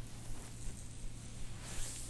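Soft rustling and shuffling of hands and clothing on a treatment table, with a breath-like hiss near the end, over a steady low hum.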